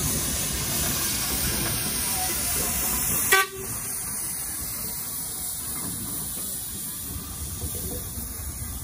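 Fowler steam roller passing with a steady hiss, and one short, sharp whistle toot about three and a half seconds in.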